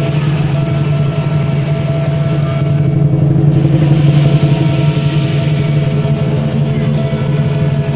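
Chinese lion dance percussion: a big drum played in a fast, continuous roll, with cymbals clashing over it.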